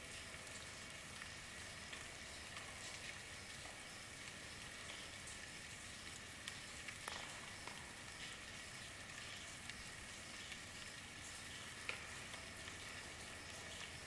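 Steady hiss of falling rain with scattered drop ticks, and one sharper tick a little before the end.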